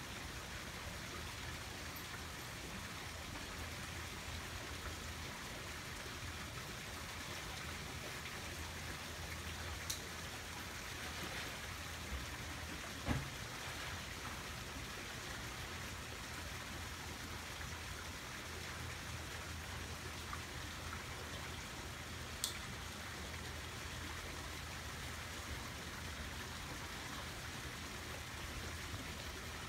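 Steady outdoor background hiss with a low hum, broken by a few short sharp clicks; the loudest click comes about thirteen seconds in.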